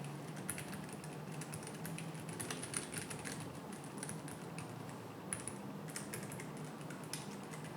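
Typing on a Keychron K7 low-profile mechanical keyboard fitted with Keychron red linear switches: a quick, irregular run of key clicks, some strokes louder than others.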